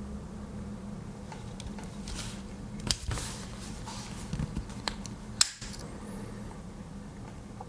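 A Victorinox Compact Swiss Army knife being handled, its tools clicking: a few scattered sharp clicks with some rustling, the loudest snap about five and a half seconds in.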